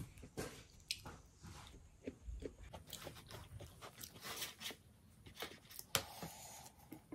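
Close-up eating sounds: faint chewing and crunching of pizza being bitten into, with small clicks as slices are handled on the plate. There is a sharper click about six seconds in.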